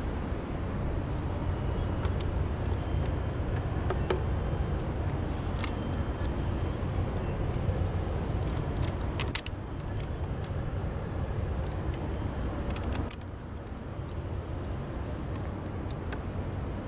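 Wind rumbling on a head-mounted camera's microphone, easing a little about thirteen seconds in, with metal rope-access hardware (carabiners and descender) clinking and clicking a few times.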